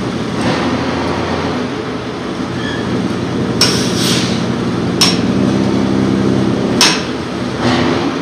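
Metal tool knocking on a truck's rear brake assembly: about five sharp metallic strikes in the second half, spaced irregularly, over a steady low machine hum.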